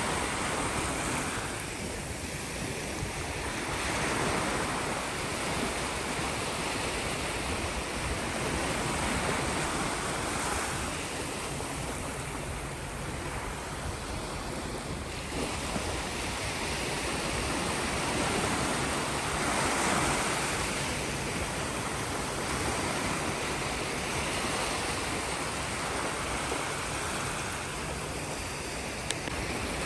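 Sea waves washing onto the shore, a steady surf wash that swells and eases every few seconds, with some wind on the microphone.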